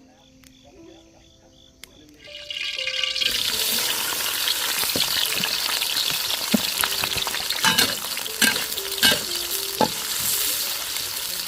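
Food sizzling in a hot pan, starting suddenly about two seconds in and staying loud, with a utensil clicking and scraping against the pan as it is stirred. Before that, quiet with faint steady insect chirring and soft background music.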